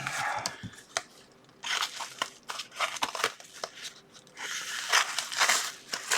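Packaging being crinkled and torn as a mailed parcel is opened by hand. The rustling comes in three spells: at the start, from about two to three seconds in, and again near the end, with scattered sharp clicks.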